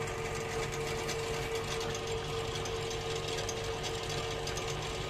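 Homemade lathe running steadily as its cutting tool faces the crown of an aluminium motorcycle piston: a constant motor hum and tone with a fast, light ticking from the cut. The piston seems to be clamped too loosely and wobbling in the chuck.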